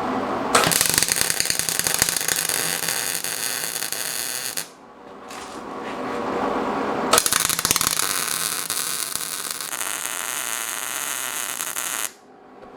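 Gas-shielded MIG welder arc buzzing and crackling in two runs of about four and five seconds, stitch welding a steel flat-bar door pull in place, with a lower steady hum in the pause between them.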